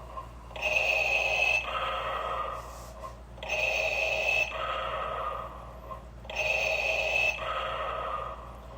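Darth Vader's mechanical respirator breathing: a slow, even cycle of a hissing inhale and exhale, repeating about every three seconds, three breaths in all.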